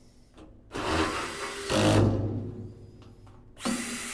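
Makita cordless drill-driver running in two bursts, driving screws into the cart's side wall: the first run lasts about two seconds and grows loudest as the screw seats, the second starts near the end.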